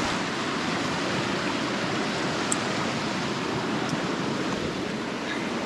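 Steady rush of falling and flowing water from a waterfall.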